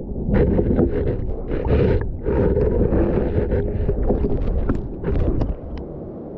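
River water sloshing and splashing as a landing net with a caught ayu is lifted and handled, with rustling and knocks on the waterproofed camera. A run of short knocks comes near the end.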